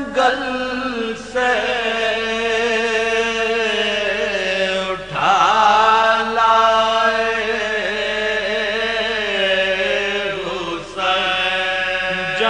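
A man reciting an Urdu marsiya, a mourning elegy, in soazkhwani style. He chants it on long held notes with a wavering pitch, broken by short gaps about a second in, around five seconds and near the end.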